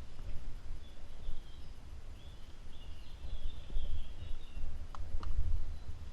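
Outdoor ambience: a low, uneven rumble on the microphone, with a bird chirping faintly and high through the middle. Two short sharp clicks come near the end.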